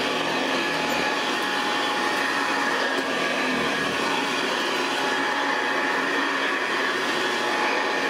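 1973 Hoover Convertible U4009 upright vacuum running on carpet: a steady rush of air with a high, even whine. Its bearings are dry, which makes it noisy, and the belt is slipping a little, so the owner means to fit a new one.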